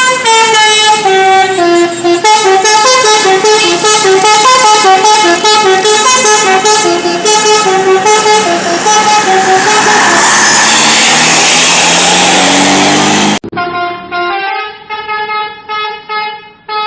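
Telolet basuri multi-tone bus air horn playing a quick melody of short, changing notes, very loud. A broad hissing swells under it over its last few seconds. About 13 seconds in it cuts off abruptly, and a thinner melody of pitched notes follows.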